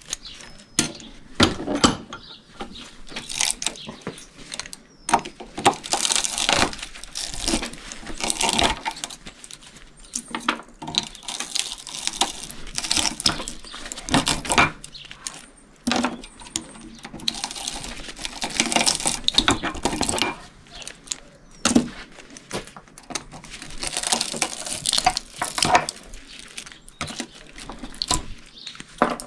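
Copper windings being pulled out of an electric motor stator with pliers: irregular metal clinks and knocks, with several longer stretches of scraping as the wire is worked free.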